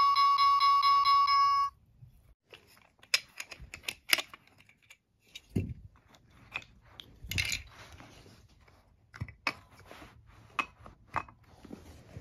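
Toy level crossing's electronic warning bell ringing in a rapid steady ding-ding pattern, cutting off about two seconds in. Then scattered clicks and knocks of wooden toy train track pieces being handled and set down.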